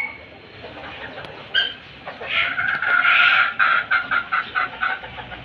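Chickens calling: a short call about a second and a half in, then a longer pitched call breaking into choppy notes from about two to five seconds in.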